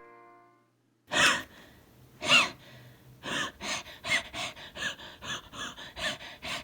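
A person wheezing with laughter: two long, squeaky gasping breaths, then a quick run of short wheezy gasps at about three a second.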